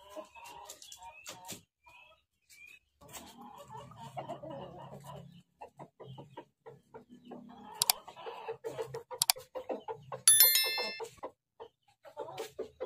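Rooster clucking softly, with scattered clicks and taps. About ten seconds in, a brief bright electronic chime sounds.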